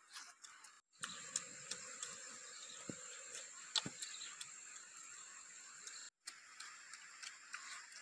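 Faint close-up chewing and mouth clicks of people eating peeled boiled eggs, over a steady high-pitched whine. Two short gaps of silence, about a second in and about six seconds in.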